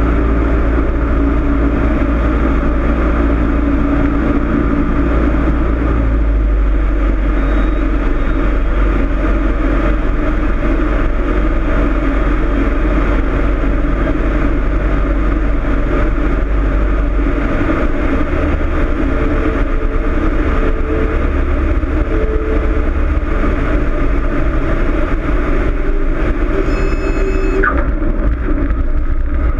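Cessna 162's four-cylinder Continental O-200 engine and propeller droning steadily, with a brief high beep near the end.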